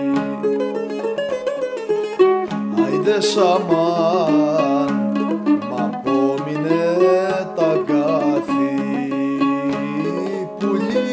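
Mandolin playing a busy plucked melody over a steadily held low note.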